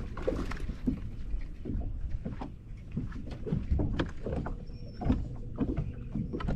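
Irregular knocks and clatter on a small fishing boat over a low wind rumble on the microphone, with no engine running.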